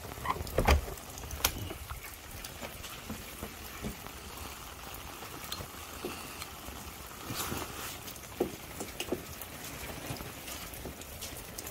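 Steady rain pattering, with many small drops ticking on an open umbrella overhead. A couple of duller thumps come in the first second.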